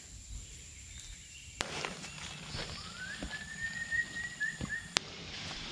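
Footsteps and rustling on a forest mountain trail under a steady high insect tone, which stops near the end. About three seconds in, a single whistle-like call rises and is held for under two seconds; two sharp clicks come about a second and a half in and near the end.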